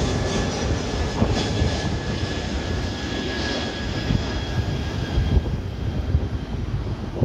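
Airbus A321 jet airliner passing low on final approach with its landing gear down: engines running with a steady high whine over a broad rush of noise. The whine fades in the last couple of seconds as the aircraft moves away.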